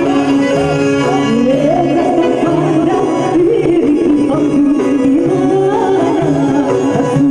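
Live Northern Epirote folk dance music over a PA: a woman singing an ornamented melody into a microphone, with clarinet, armonio and defi frame drum keeping the dance rhythm. The winding vocal line comes in about a second in.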